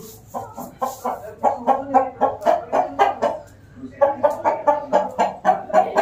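Chicken clucking in fast runs of short calls, about five a second, with a brief pause a little past halfway.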